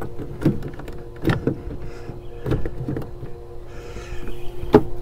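Plastic coolant reservoir tank knocking and creaking against its mounting as it is worked loose off its tabs: a string of separate sharp knocks, the loudest near the end, over a steady low hum.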